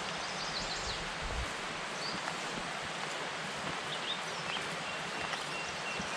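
Steady outdoor hiss by a pond, with a few short, high bird chirps over it.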